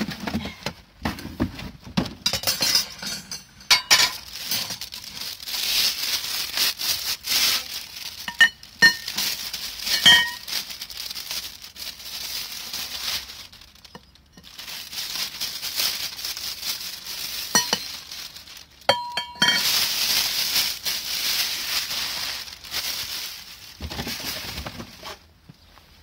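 Cardboard box and plastic wrapping being torn open and rustled, with the metal poles and wire hooks of a bird feeding station clinking as they are unwrapped and set down on concrete paving.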